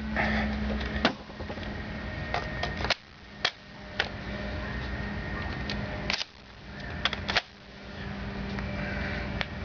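Scattered sharp clicks and snaps from a spring-powered airsoft shotgun's mechanism, about ten at uneven intervals, over a steady background hiss.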